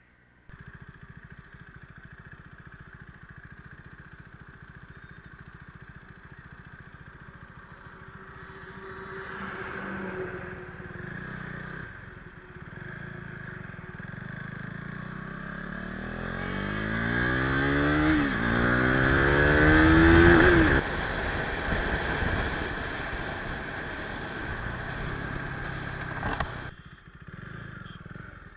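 Single-cylinder sport motorcycle with an aftermarket exhaust idling, then revved on the stand: a short blip about ten seconds in, then two long climbing revs, the second the loudest, before it falls back to idle. The level drops suddenly near the end.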